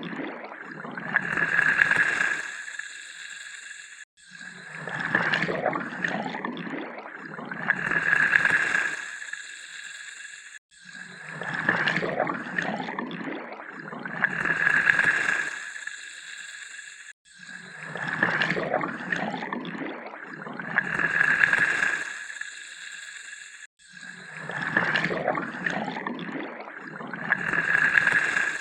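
Water pouring, in repeated pours of about six and a half seconds each; each pour swells twice and then cuts off suddenly, about four times over.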